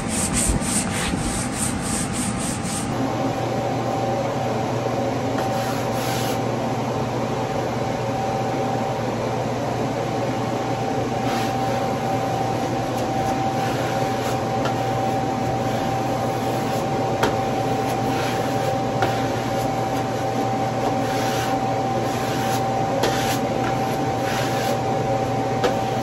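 Quick sanding strokes across a wall for the first few seconds. Then come intermittent rubbing swishes as a wallpaper mural panel is pressed and smoothed flat against the wall, to work out wrinkles. A steady fan hum runs underneath.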